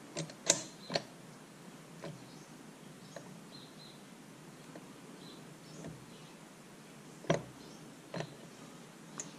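A few light metal clicks and knocks from a Tuff Torq K66 hydrostatic transaxle's gears and axle shaft being handled during reassembly. Three clicks come in the first second, then a sharp one a little after seven seconds and a softer one near eight.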